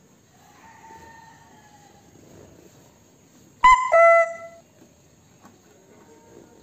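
Car horn sounded by a toddler at the steering wheel: a short, loud honk about halfway through, dropping to a lower note after a moment, as if pressed twice in quick succession.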